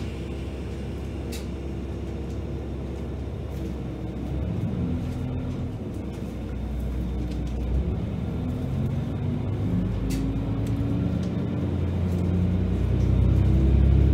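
Diesel railcar engine heard from inside the passenger cabin. It runs steadily at first, then from about four seconds in its note rises in steps and grows louder as the train pulls away from the station.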